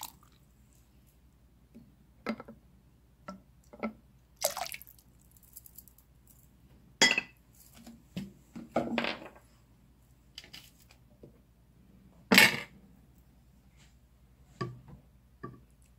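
Scattered clinks and knocks of kitchen dishes and glassware being handled, short sharp sounds every second or so with quiet between. Two louder knocks come about seven and twelve seconds in.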